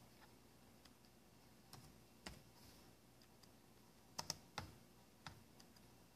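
Scattered, faint clicks of a computer mouse and keyboard, about eight in all, with a quick cluster of three a little past four seconds in.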